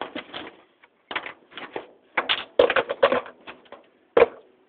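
An irregular run of sharp knocks and clatters from ceiling fan parts and tools being handled during disassembly, busiest about two to three seconds in, with one last hard knock near the end.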